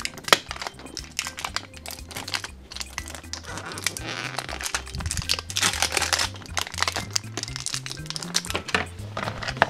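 Background music with a stepping bass line, over repeated plastic crackling and clicking as the lid of a Play-Doh Picnic Bucket is pried open.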